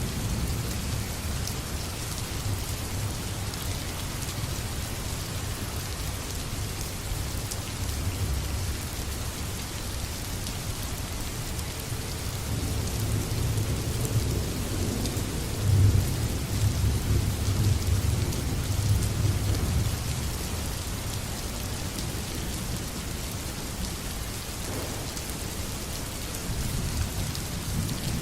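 Steady heavy rain falling, with thunder rumbling low underneath. A longer roll of thunder swells about twelve seconds in, is loudest around sixteen seconds and fades away by about twenty seconds.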